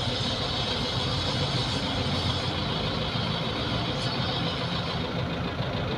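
An engine running steadily, like an idling vehicle or machine, with an even high hiss over it.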